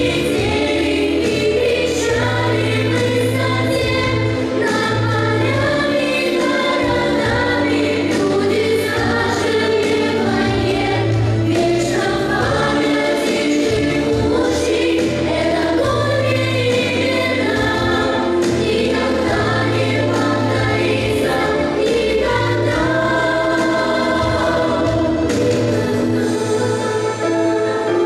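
Music: a song with several voices singing over instrumental backing and a steady bass line.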